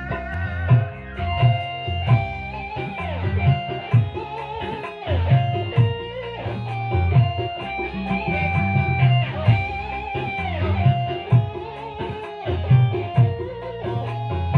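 Koplo/bajidor-style dance music: a melody with bending, sliding notes over a heavy, repeating drum beat and deep bass.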